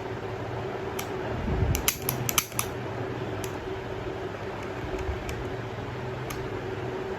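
Sharp metallic clicks of a Beretta M9A3 pistol's parts being handled and worked: a quick run of several about two seconds in, then single clicks spread apart. A steady hum runs underneath.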